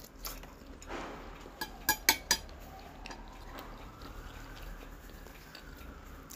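Close-up chewing of a mouthful of noodles and boiled egg with the lips closed. A few sharp clicks about two seconds in, as the chopsticks are laid down on the ceramic plate.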